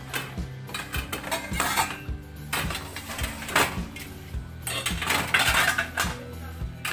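Stainless steel pots, pans and lids clanking and knocking together as they are lifted out of a kitchen cupboard, a run of irregular knocks. Background music plays underneath.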